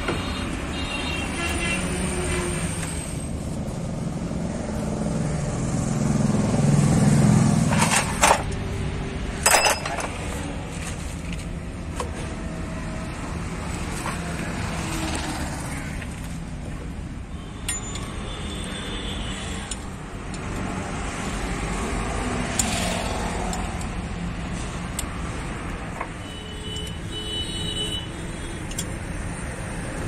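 Truck-repair yard noise: a vehicle rumbles past, swelling about six to eight seconds in, followed by two sharp knocks about a second and a half apart, with lighter scattered clicks as a truck's propeller shaft and differential parts are handled.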